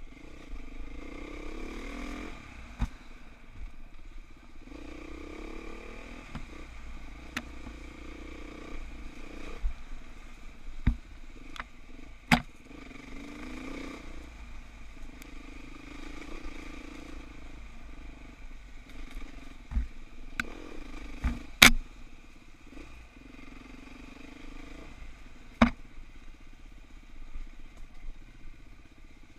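Dirt bike engine running on a rough trail, its pitch rising and falling as the throttle is worked. Several sharp knocks and clacks cut in, the loudest about three-quarters of the way through.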